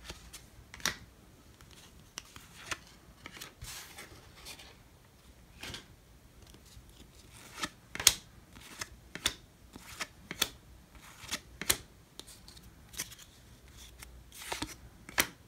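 A hand-held stack of Topps baseball cards being flipped through one card at a time: sharp card-stock flicks and snaps at irregular intervals, coming faster in the second half, with a longer sliding swish about four seconds in and another near the end.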